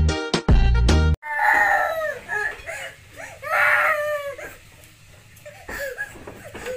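Dance music with a steady beat cuts off about a second in. Then a young girl cries in two high, drawn-out wails, a couple of seconds apart.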